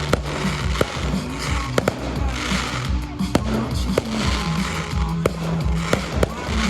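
Fireworks bursting: a rapid run of sharp bangs, roughly two a second, with crackling in between, over music playing through loudspeakers.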